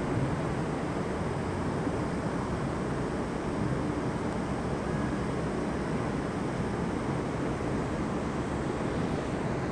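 Steady rushing noise of wind on the microphone and city traffic, even throughout, with no firework bangs standing out.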